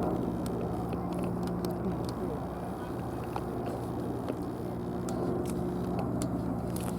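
A steady low engine drone with a fixed pitch, fading down in the middle and building back up near the end, with faint clicks over it.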